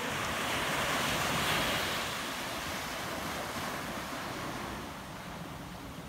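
Small ocean waves washing onto a sandy beach, with wind buffeting the microphone. The wash swells about a second and a half in and then slowly eases off.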